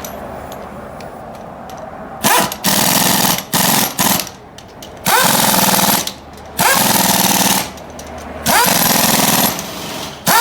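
Pneumatic impact wrench running lug nuts onto a wheel: repeated hammering bursts of about half a second to a second, each starting with a short rising whine, beginning about two seconds in.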